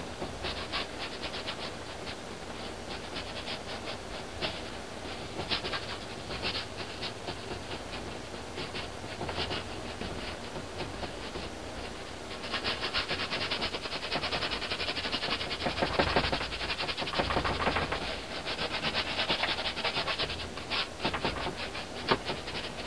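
Paintbrush working acrylic paint onto a canvas: scattered short strokes at first, then about halfway through a run of rapid, dense scrubbing strokes lasting several seconds before easing off near the end.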